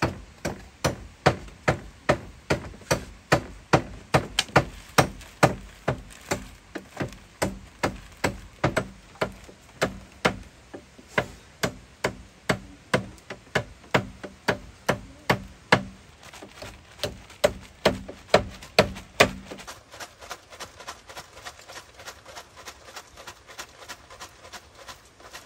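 Regular, sharp knocking strikes, about two a second, much fainter for the last several seconds.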